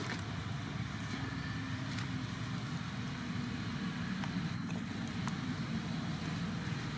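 Steady low rumble, with a few faint ticks over it.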